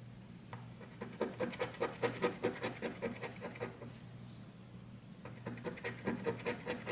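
Scratch-off lottery ticket being scratched with a coin or fingernail: quick back-and-forth strokes, about six a second, in two runs with a pause around four seconds in. A steady low hum runs underneath.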